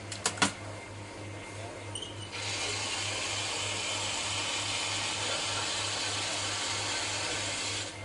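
Three sharp knocks in quick succession, then a coffee grinder running steadily for about five seconds, starting about two seconds in and cutting off abruptly near the end.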